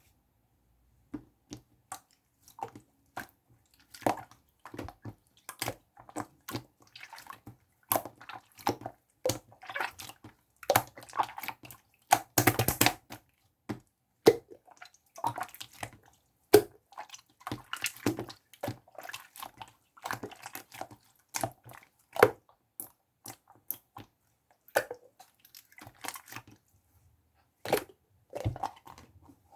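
Clear slime being squished and pressed by hand, giving irregular wet clicks and pops of trapped air, with a longer, louder squelch about twelve seconds in.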